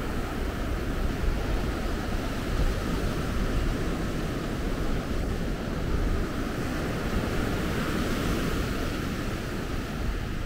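Surf breaking and washing up a sandy beach, a steady rush with a low rumble of wind on the microphone.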